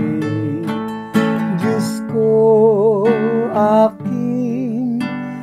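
Acoustic guitar strumming a song accompaniment, with a solo voice singing long held notes with vibrato about halfway through.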